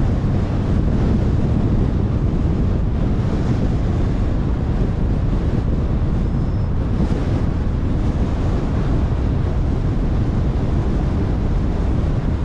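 Steady wind buffeting the microphone with low road rumble from a car driving along at speed.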